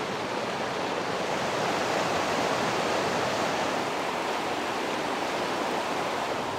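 Muddy floodwater rushing steadily.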